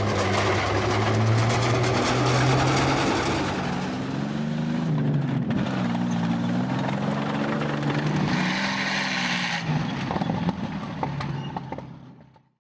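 A heavy engine running, its pitch wavering up and down, with mechanical clatter over it; it fades out to silence near the end.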